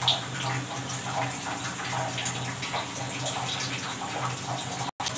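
Curry gravy with freshly added fish masala sizzling and bubbling in an oiled frying pan on a gas stove: a steady hiss over a low hum, with a few small ticks. It breaks off for a moment near the end.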